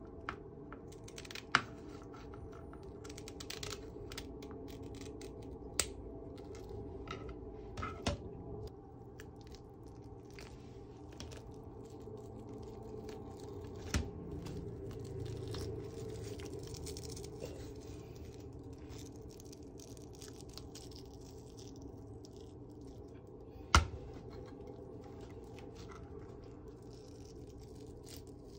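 Kitchen scissors snipping through a filefish's dorsal fin, then the fish's tough skin and head being torn apart by hand, with a few sharp clicks and scrapes in between.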